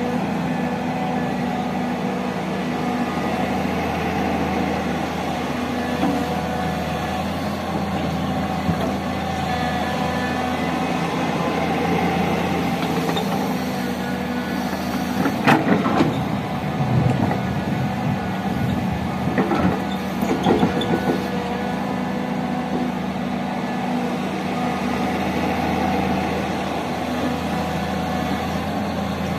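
Heavy diesel engine running steadily, with a few sharp knocks and a stretch of clatter about halfway through that are typical of an excavator loading a dump truck.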